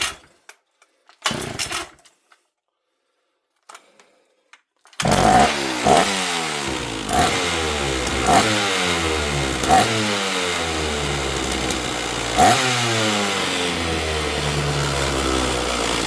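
Old two-stroke chainsaw being pull-started: a couple of short starter-cord pulls, then about five seconds in the engine catches and keeps running, with a brief louder spike every second or so. The owner thinks this saw may need a carb kit.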